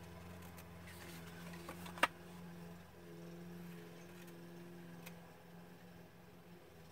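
Scissors snipping around the edge of cardstock: a few faint snips, with one sharper click about two seconds in, over a steady low hum.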